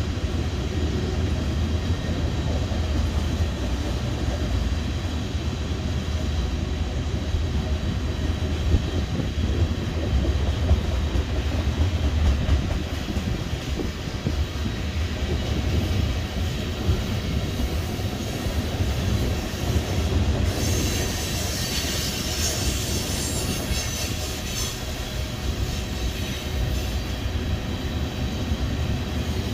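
Canadian Pacific freight train of tank cars rolling past, its wheels on the rails making a steady low rumble. About two-thirds of the way through, a high wheel squeal rises over it for a few seconds.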